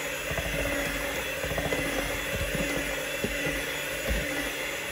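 Polaris electric hand mixer running steadily, its beaters churning a thick cottage-cheese batter in a stainless steel bowl.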